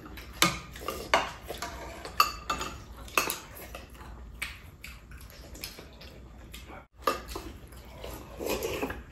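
Spoons and chopsticks clinking and scraping against bowls and a pot while people eat. There are irregular sharp clicks, busiest in the first few seconds and sparser after.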